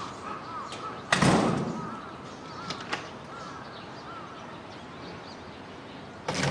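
A door thudding open or shut about a second in, two light clicks near three seconds, and another short knock of the door just before the end, over repeated high chirping of small birds.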